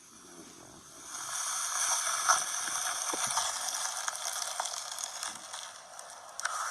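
Slime being squished and worked by hand: a wet crackling hiss with small clicks and pops, faint at first and louder from about a second in.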